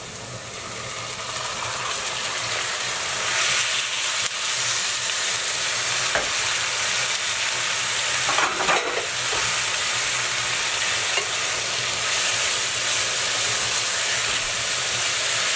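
Marinated chicken pieces tipped into a pan of frying onions, sizzling in hot oil, the sizzle building over the first couple of seconds and then holding steady. A wooden spatula stirs through the pan, with a brief scrape about eight seconds in.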